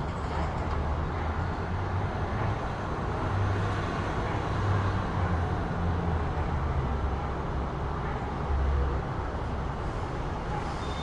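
City road traffic: a continuous low rumble of vehicles that swells and eases as cars pass.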